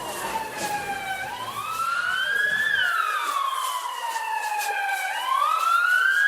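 Emergency vehicle siren in a slow wail, its pitch gliding up and down about once every four seconds. A low background drone cuts off about three seconds in.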